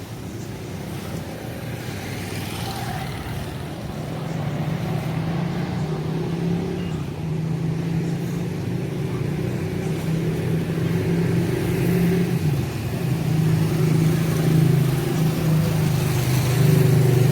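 Street traffic: a motor vehicle's engine running close by with a steady low hum that grows gradually louder.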